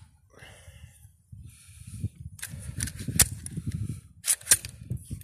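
Steambow AR-6 Stinger repeating pistol crossbow being fired and worked: several sharp snaps, the loudest in the middle and a quick pair a little later.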